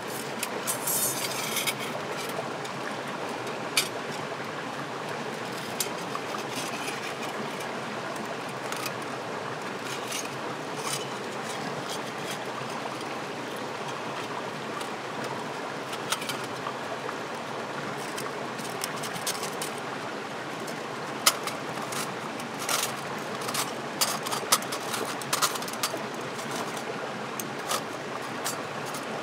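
Steady rush of a nearby forest stream, with light metallic clicks and clinks as the plates of a small folding steel pocket stove are unfolded and fitted together, coming more often in the last several seconds.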